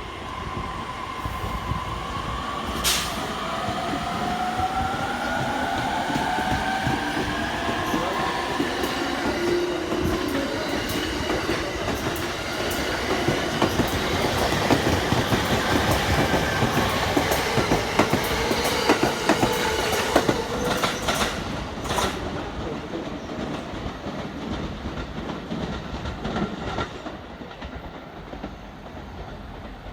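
Electric train running through the station: a motor whine rising steadily in pitch over the first several seconds as it accelerates, then rapid clicking and clacking of wheels over rail joints that builds to a peak and fades away near the end.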